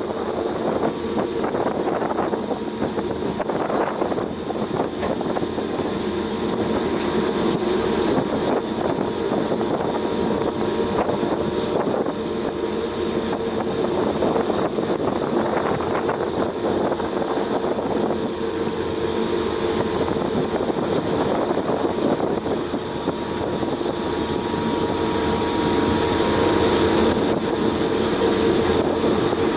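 Balduf PZ 63-1 wood chipper running steadily: a constant machine hum with a dense, irregular rattling noise over it.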